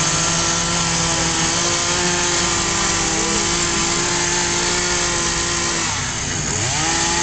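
Dolmar two-stroke chainsaw running at high revs as it carves a block of ice. About six seconds in the engine speed dips briefly and climbs back up.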